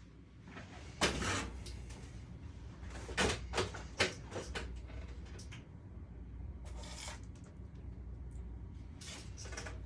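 Drywall taping knife scraping joint compound, in a string of short, irregularly spaced scraping strokes.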